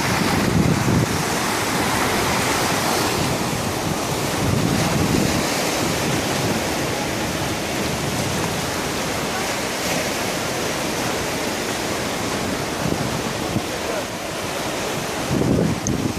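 Mediterranean Sea waves washing in steadily, with wind buffeting the microphone in low rumbling gusts at the start, about five seconds in, and near the end.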